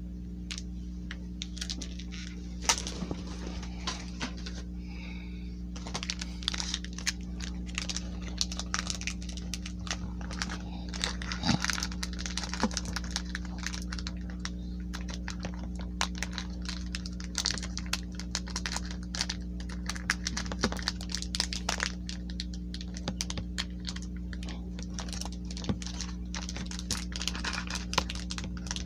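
Foil Pokémon booster-pack wrapper crinkling and crackling in irregular bursts as fingers pick at its back seam, trying to peel it open rather than tear it. A steady low hum runs underneath.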